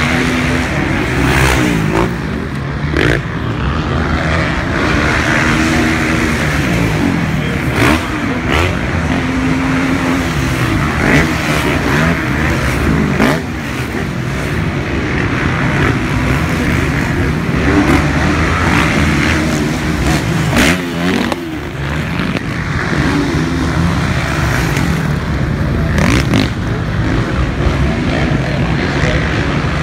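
Several motocross bikes' engines revving hard, pitch rising and falling again and again as the riders work the throttle and shift, with a few short sharp knocks among them.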